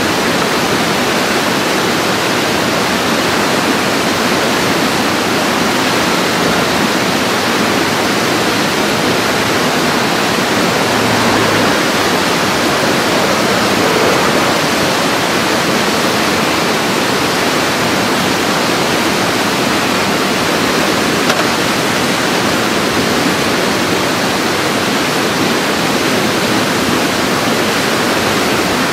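Whitewater rapids rushing: a loud, steady, even noise of fast-moving water.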